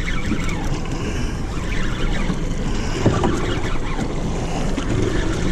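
Wind buffeting the microphone over water slapping against a small boat's hull, a dense steady rush with a couple of brief louder bumps.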